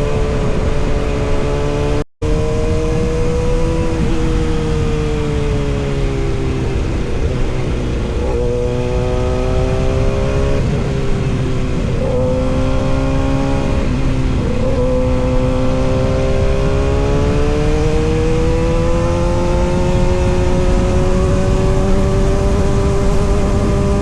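Kawasaki ZX-6R inline-four sport bike engine running steadily, its pitch sinking and climbing slowly with several quick shifts in pitch through the middle. The sound cuts out completely for an instant about two seconds in.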